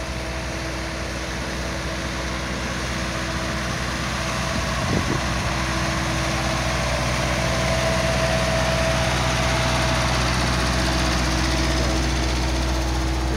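A parked semi truck's diesel engine idling: a steady low hum with a constant drone, growing gradually louder. There is a brief soft knock about five seconds in.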